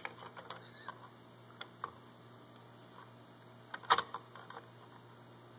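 Light metallic clicks of motorcycle clutch plates being slid onto the clutch basket, with a brief sharper clatter about four seconds in.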